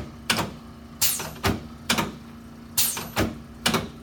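Chiropractic adjusting tool firing repeatedly against the patient's body: sharp clicking knocks in a steady rhythm of about two a second.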